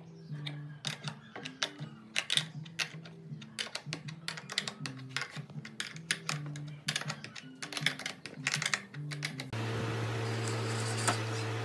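Light clicking of steel nuts, washers and roller bearings as they are handled and fitted onto bolts, over soft background music. About nine and a half seconds in, a cordless drill starts and runs at a steady hum.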